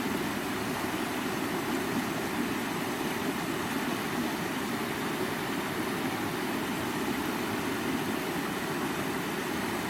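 River water flowing: a steady, even rushing noise that holds the same level throughout.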